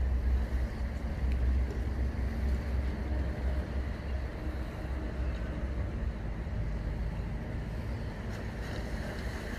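Wind buffeting the microphone: a steady low rumble that swells and eases, over faint open-air ambience.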